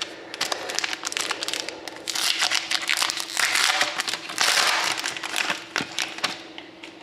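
Plastic crinkling and rustling with many sharp clicks, loudest in the middle, as trading cards and their plastic wrapping and sleeves are handled.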